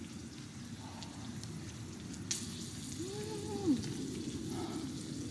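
Food sizzling steadily on a small tabletop grill. A sharp click comes a little past two seconds in, and about three seconds in a short whine-like tone rises and falls.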